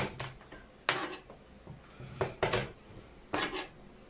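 Kitchenware being handled on a counter: a series of short knocks and clinks, several coming in quick pairs.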